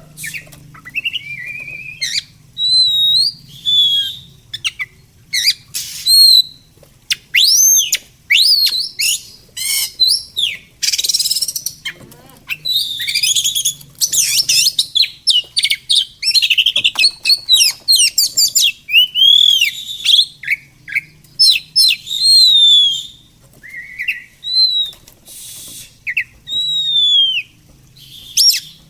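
Songbirds chirping and singing: rapid high whistled notes and quick sweeping calls, thickest through the middle and thinning out toward the end.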